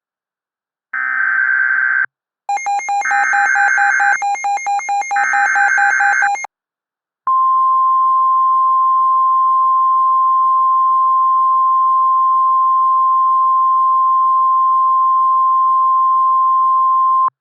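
Emergency alert signalling: three short bursts of the warbling SAME digital header tones, the later two mixed with a rapid stuttering tone. Then the steady single-pitch NOAA Weather Radio warning alarm tone, about 1050 Hz, held for about ten seconds and cut off cleanly. It marks the start of a new warning broadcast.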